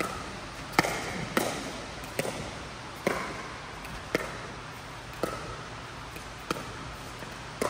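Pickleball rally: paddles striking the hard plastic ball in quick volleys, about eight sharp pops roughly once a second, each ringing briefly in a large indoor hall.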